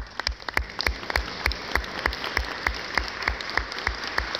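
Audience applauding in a large hall, with one pair of hands clapping close by in a steady beat of about three claps a second.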